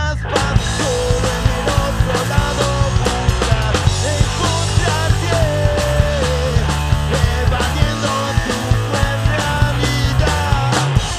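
Live punk rock band playing: electric bass, electric guitar and a drum kit, with a steady beat of drum hits under the guitars.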